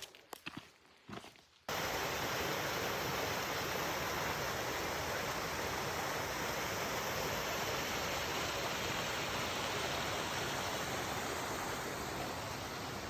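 A few footsteps on the trail, then a sudden jump, about two seconds in, to a steady, loud rushing noise that holds to the end.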